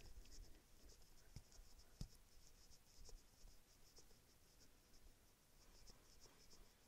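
Near silence: faint room tone with a faint, rapid high-pitched ticking of several ticks a second, and a couple of faint soft knocks in the first two seconds.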